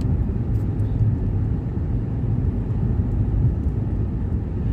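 Car driving slowly on a snowy road: a steady low rumble of engine and tyres.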